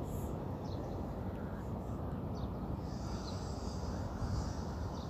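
Steady low outdoor background noise with a few faint, short, high bird calls.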